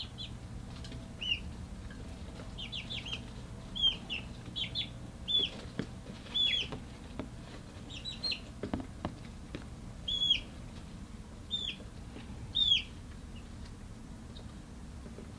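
Young chickens in a brooder peeping: many short, high chirps, each dropping in pitch, scattered irregularly and thinning out near the end, over a faint low steady hum.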